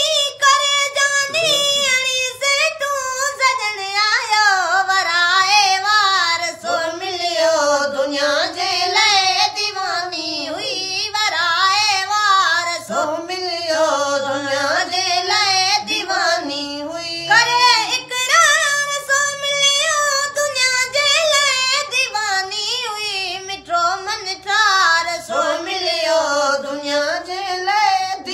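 A boy singing a Sindhi naat unaccompanied: one high voice in long, wavering held phrases, with short breaths between them.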